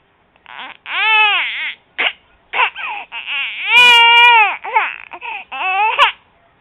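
Three-month-old baby crying in short, choppy, cough-like bursts, with one longer, louder cry about four seconds in.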